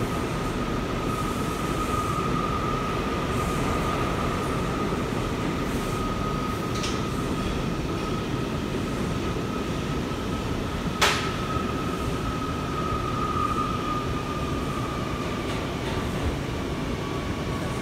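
New York City subway car running through the tunnel, heard from inside the car: a steady rumble with a high whine held throughout, and a sharp clack about eleven seconds in.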